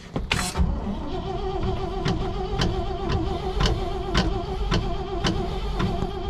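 White GMC grain truck's engine on a cold start: it catches with a burst about half a second in, then runs at idle with a steady tone over it and a sharp tick repeating about twice a second.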